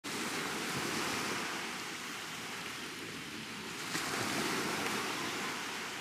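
Sea surf washing onto a sandy beach: a steady rush of breaking waves that swells and eases.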